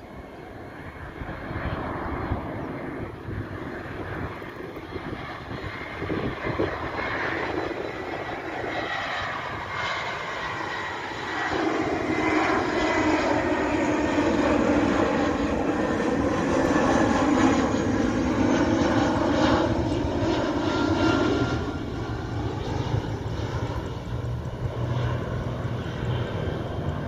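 Airbus A321-211 airliner on landing approach, gear down, its CFM56 turbofan engines whining and rumbling as it comes nearer and passes close by. The sound builds to its loudest about halfway through, the whine falls in pitch as the jet goes past, and it eases off near the end as the aircraft flies on toward the runway.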